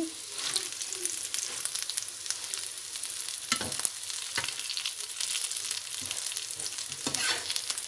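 Potato and pea kebabs shallow-frying in hot oil in a pan, a steady crackling sizzle, with a few knocks of the spatula against the pan as cooked ones are lifted out, about halfway through and near the end.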